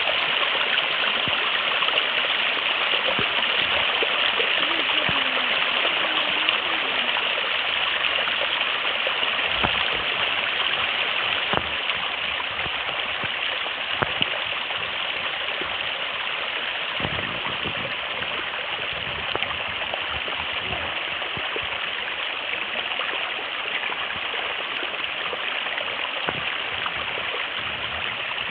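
Steady rushing of flowing water from a stream, an even continuous rush with no breaks.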